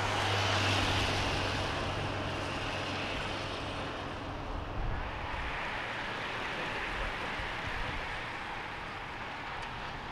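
A pack of racing bicycles sweeping past: a steady rush of tyre hiss and freewheel whir, loudest in the first few seconds and then slowly easing. A low steady hum runs under it until about halfway through.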